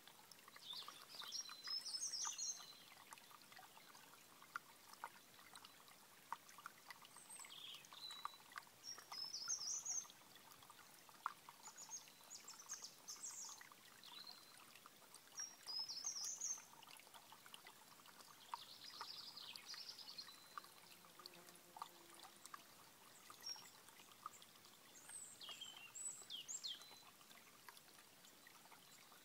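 Small rocky stream trickling and gurgling softly over stones, with birds singing short high phrases every few seconds.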